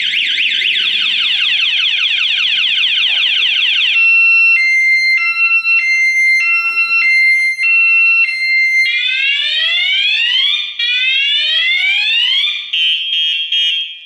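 Kawasaki Ninja 250's aftermarket anti-theft alarm siren sounding its full theft alert, set off as when someone tampers with the bike. It cycles through patterns: a fast warble, then a high-low two-tone, then rising whoops, then rapid beeps, and cuts off near the end.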